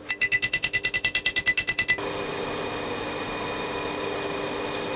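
Hand hammer striking a steel drift through a red-hot steel pommel on an anvil, a fast, even run of ringing metal blows, about ten a second, driving the drift to widen the hole. About two seconds in the hammering stops abruptly and a steady mechanical hum takes over.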